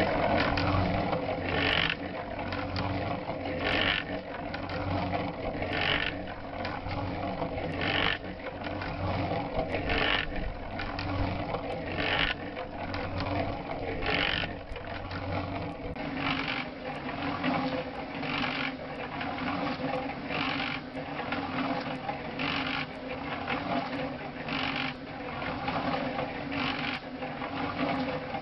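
Small portable cement mixer running while mixing cob: a steady motor and gear hum, with a brief noise that recurs about every two seconds as the drum turns, somewhat more often in the second half.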